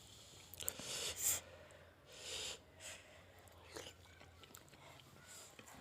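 Faint mouth sounds of eating very spicy curry: soft chewing and a few short, hissing breaths at intervals, the kind drawn against chili burn.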